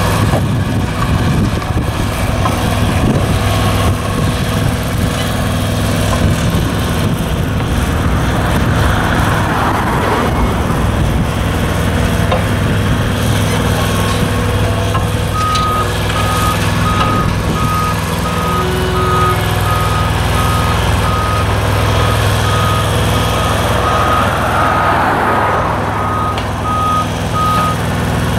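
Diesel engines of a dump truck and an asphalt roller running steadily. About halfway through, a construction vehicle's backup alarm starts beeping at an even pace and keeps going.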